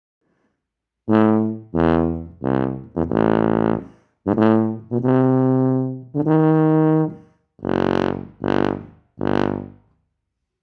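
Wessex TB790 HP Kaiser BBb rotary tuba playing in its low register: a phrase of about ten separate notes, some short and some held, starting about a second in.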